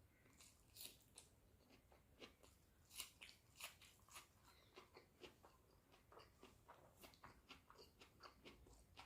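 Faint close-up eating sounds of a person eating egg curry with rice and raw green chillies: irregular crunching bites and wet chewing clicks, several a second.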